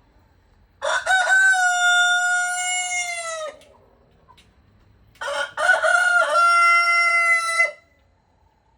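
Roosters crowing: two long cock-a-doodle-doo calls, one starting about a second in and another after a short pause, each ending in a falling tail.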